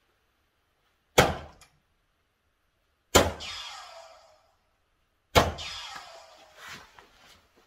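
Three 20 g Target Paul Lim Gen 4 soft-tip darts striking the plastic segments of a Gran Board 3s electronic dartboard, one sharp knock about every two seconds. The last two hits are each followed by a falling electronic tone from the board that fades over about a second.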